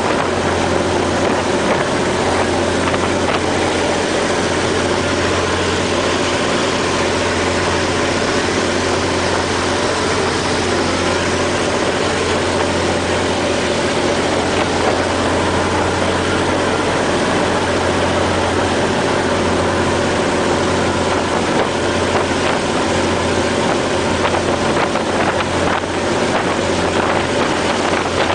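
Express passenger boat's engine running steadily at cruising speed with a deep drone, over the rushing of the churning wake along the hull.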